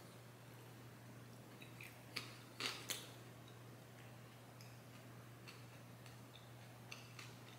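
Near silence with a faint, steady low hum. A few soft mouth clicks come about two to three seconds in, from chewing a bite of cookie.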